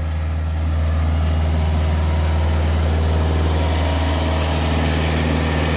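Compact tractor's diesel engine running steadily, getting slightly louder about half a second in.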